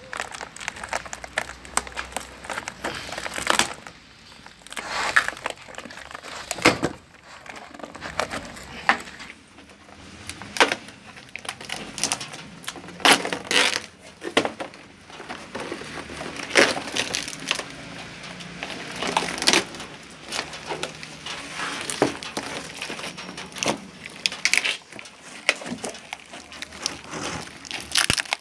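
Plastic wrapping film and cardboard packaging crinkling and rustling in irregular crackles as a new radiator is unwrapped by hand from its box.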